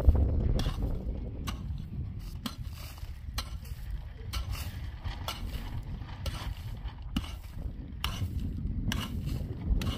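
A hand mattock chopping and scraping into dry, sandy earth, with irregular sharp strikes about one to two a second.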